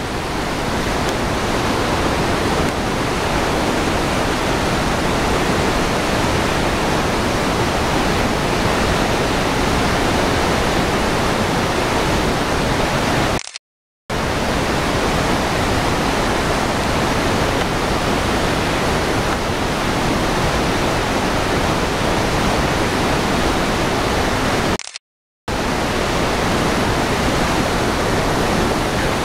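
Steady roar of Iguazu Falls and the rapids below, a dense rushing noise. It cuts out to silence twice, briefly: about halfway through and again later on.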